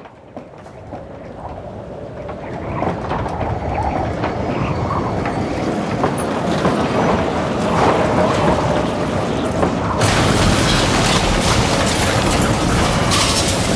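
A tornado's roar: a deep, rushing, train-like rumble that swells up over the first few seconds and then runs loud and steady. About ten seconds in it turns harsher, with hiss and crackles.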